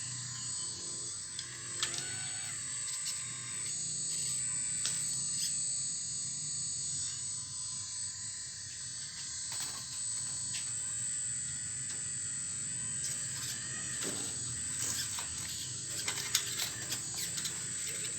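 Full-metal RC excavator working, its hydraulic pump and motors making a steady whine and hum. Scattered clicks and knocks come as the bucket scrapes through stones and soil, bunching together in a clatter about three-quarters of the way through.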